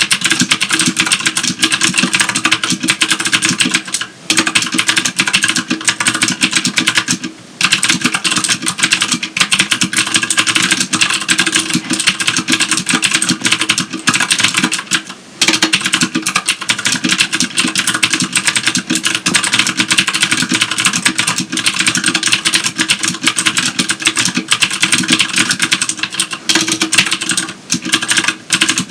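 Rapid, continuous typing on a Filco Majestouch Tenkeyless keyboard with clicky Cherry MX Blue switches: a dense run of sharp key clicks, broken by brief pauses about four, seven and fifteen seconds in.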